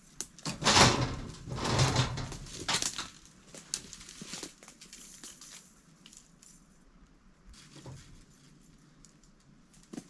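Corn kernels being poured into a hog feeder: a loud rushing patter of grain for about two and a half seconds, then lighter rattles and knocks.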